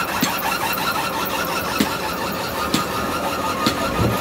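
Loaded belt conveyor running over its steel idler rollers: a steady mechanical rumble and whine with a short sharp click about once a second.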